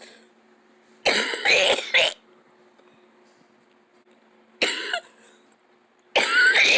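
A person coughing in three loud fits: a long one about a second in, a short one past the middle, and another starting near the end.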